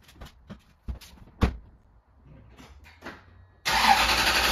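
A pickup's door shuts with a thud about a second and a half in, after a few lighter clicks and knocks. Near the end a 2002 Toyota Tundra's V8 engine starts up suddenly and runs loud and steady.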